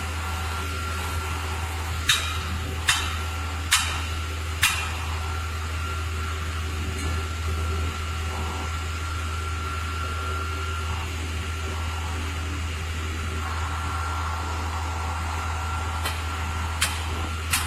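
Concrete pump truck's diesel engine running with a steady low hum, with sharp knocks four times about a second apart a couple of seconds in and twice more near the end.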